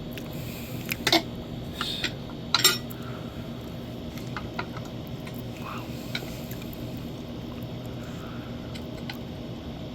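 Metal tools clinking against the electric unicycle's wheel during a tire change: three sharp clinks in the first few seconds, the last the loudest, then a few faint taps, over a steady low hum.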